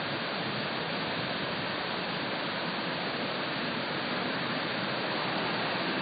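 Swollen, muddy river in flood, its fast water rushing steadily.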